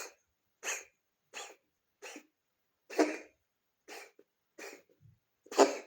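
Cat coughing in a run of about eight short coughs, a little more than one a second, the loudest near the end. The owner wonders whether the cough comes from the heart.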